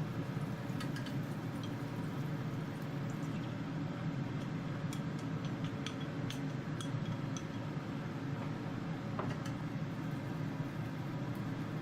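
Scattered light clinks and taps of tableware, a cluster of them midway and one more near the end, over a steady low hum.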